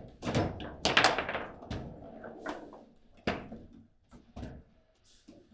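Table football in play: the ball being struck by the rod figures and banging against the table, a run of sharp knocks and thuds at irregular intervals, loudest about a second in.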